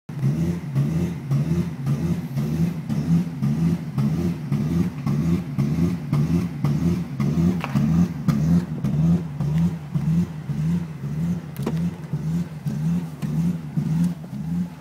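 BMW 545i's 4.4-litre V8 idling roughly, its note pulsing unevenly over and over: a rough idle whose cause the owner does not know.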